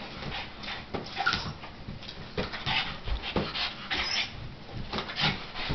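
Boston Terrier whimpering, with scattered short knocks and taps throughout.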